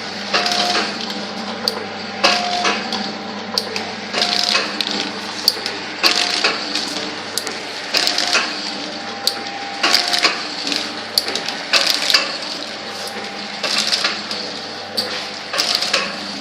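Mansy model 505 four-side-seal liquid sachet filling machine running at its slowest speed, about 31 sachets a minute. Each cycle, about every two seconds, brings a cluster of clacks and a brief tone over a steady motor hum.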